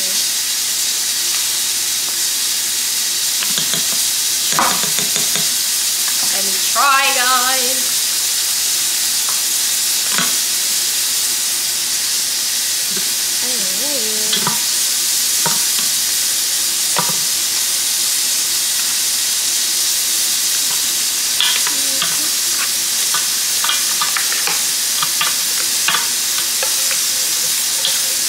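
Browned curry goat sizzling in a pressure cooker pot as it is stirred, with a steady hiss and scattered scrapes and taps of the utensil against the pot.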